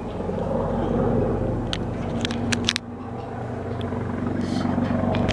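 Helicopter flying low overhead: a steady low rotor and engine drone that dips briefly about three seconds in, then grows louder as it comes closer. A few sharp clicks about two seconds in.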